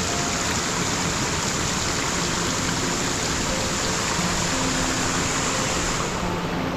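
Steady rushing of a waterfall: falling water making an even hiss, with faint music underneath.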